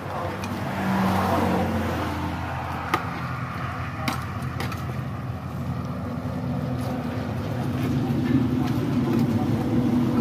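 A steady low engine rumble with shifting low tones, a little louder near the end, and a few sharp clicks, likely the metal ladle knocking against the steel cooking pot, about three and four seconds in.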